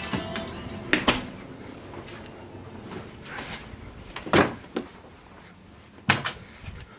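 A few knocks and thuds of doors and household things being handled: a quick double knock about a second in, the loudest thud about four and a half seconds in, and another near the end.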